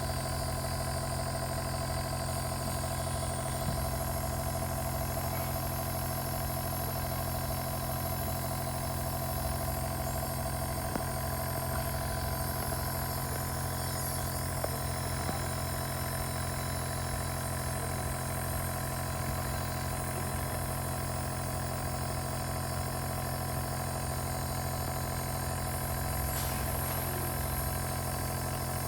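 Electric compressor nebulizer running with a steady mechanical hum, unchanging throughout, with a few faint ticks.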